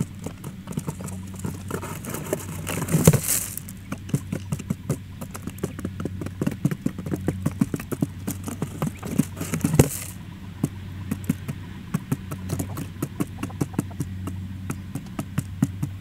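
Quail pecking at scattered grain on cardboard and dirt: rapid, irregular sharp taps, with a louder brief scuffle about three seconds in and again about ten seconds in, over a low steady hum.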